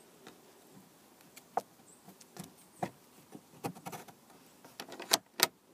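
Scattered light clicks and knocks of a wooden rabbit hutch door being pushed shut and its small turn-button latch worked by hand, the sharpest two knocks near the end.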